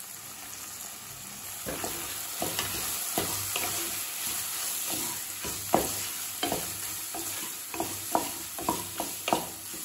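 Chopped vegetables with freshly added turmeric and chilli powder sizzling in oil in a kadai, sautéed with a wooden spatula. A steady frying hiss throughout, with the spatula scraping and tapping against the pan from about two seconds in, the taps coming more often in the second half.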